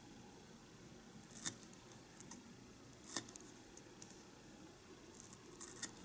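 Small knife slicing a green onion on a miniature wooden cutting board: sharp clicks as the blade strikes the board, three louder ones a second or two apart with a few softer ticks between.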